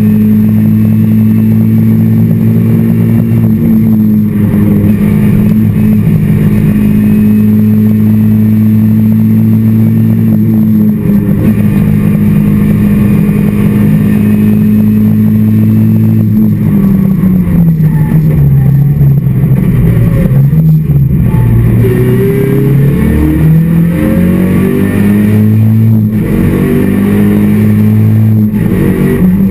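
Skoda Felicia rally car's engine, heard from inside the cabin, running hard at a steady pitch for about the first half. After that its pitch drops and climbs again several times through lifts and gear changes.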